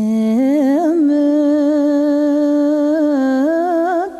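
A single voice singing a wordless melody, holding long notes joined by small ornamental turns, with a brief break near the end before the next phrase.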